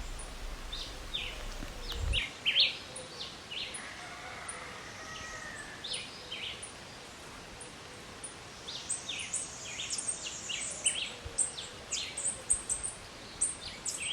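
Small birds chirping in many short, repeated calls, thickest near the end, over a steady outdoor background hiss. A low rumble in the first two seconds.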